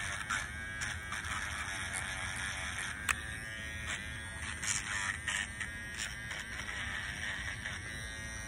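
Steady electric buzz, like a small motor running, with a few faint clicks and one sharper click about three seconds in.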